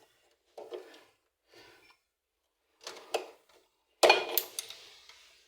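Pliers and metal tools clicking and scraping on an LG washing machine's thermistor and its mounting as it is worked loose, with one sharp, louder knock about four seconds in.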